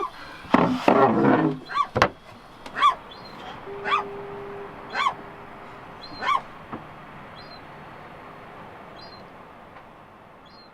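Gulls calling: a loud harsh squawk near the start, then a run of single cries about once a second that stop a little past halfway, with smaller high chirps later.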